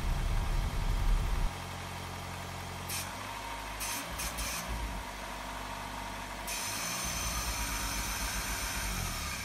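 Swapped-in 2.2-litre turbocharged four-cylinder from a 1990 Dodge Daytona Shelby VNT idling in its new car, just started after the install. The idle drops in level about one and a half seconds in and picks up again near the end, with a few light clicks in between.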